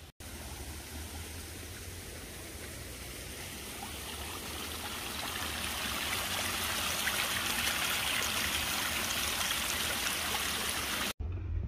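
Water of a small rocky garden stream running and trickling over stones: a steady rush of water that grows gradually louder.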